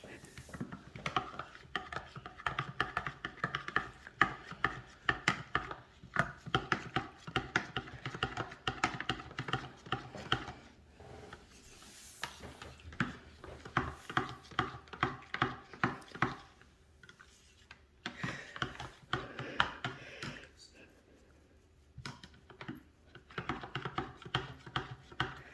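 Quick repeated clicking and scraping of food being stirred or mixed in a container, about three or four strokes a second, pausing a few times.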